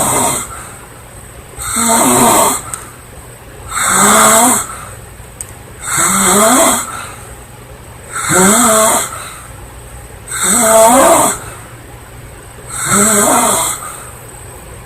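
A woman snoring loudly and regularly, one snore about every two seconds, each with a wavering pitch, with quieter breathing between.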